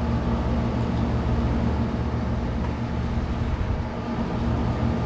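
Steady low mechanical hum of a running motor, such as room air-handling equipment, holding an even pitch and level throughout.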